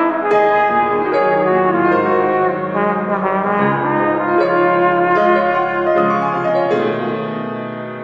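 Flugelhorn playing a slow, lyrical melody in long held notes over a piano accompaniment, the last note fading away near the end.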